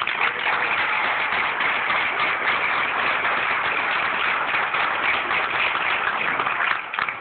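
Audience applauding, a dense steady patter of many hands clapping that stops abruptly near the end.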